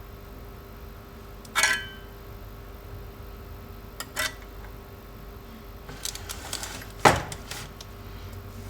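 Small hard objects clinking and knocking as they are handled, a few scattered clatters with the loudest about seven seconds in, over a faint steady hum.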